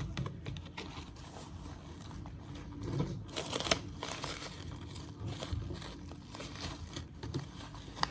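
Close-up handling of slime: soft, irregular crinkling and crackling, busiest about three to four seconds in.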